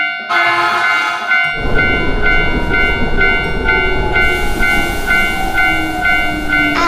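Japanese railroad crossing bell ringing in a steady 'kan-kan' about twice a second. From about one and a half seconds in, a train runs past with a loud rumble that continues under the bell.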